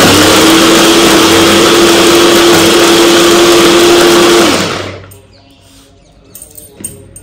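Inalsa electric mini chopper's motor blending milk, bananas, nuts and chocolate, running loud with a steady whine while its top is pressed down. About four and a half seconds in it is released and winds down to a stop, followed by a few faint knocks of the jar being handled.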